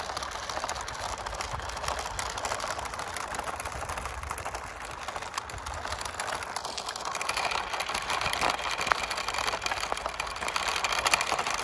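Toy RC monster truck's small electric motor and plastic gearbox whirring with a fine rapid rattle as it drives over gravel, a little louder in the second half.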